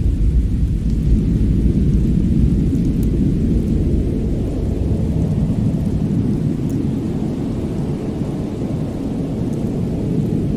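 Fireplace ambience: a steady low rumble with a few faint high crackles.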